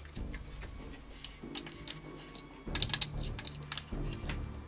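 Irregular small metallic clicks and taps of a screwdriver working the screws of an airsoft M4's keymod handguard rail, denser a little over halfway through.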